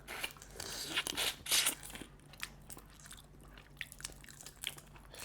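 Crab being eaten: shell crunching and cracking with close-up chewing, heaviest in the first two seconds, then lighter scattered crunches.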